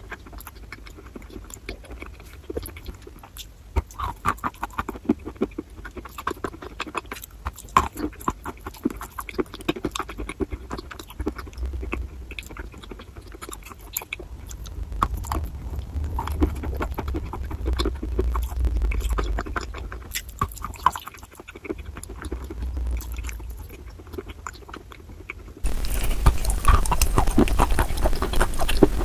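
Close-up crunching and chewing of wet chalk, a dense run of irregular crisp crunches. It gets suddenly louder near the end.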